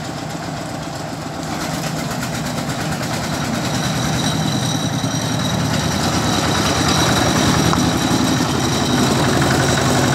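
Engine running steadily with a fast, even rumble, mainly the site dumper's small engine heard up close with the concrete mixer truck running behind. It grows gradually louder from about a second and a half in, and a faint steady whine joins about four seconds in.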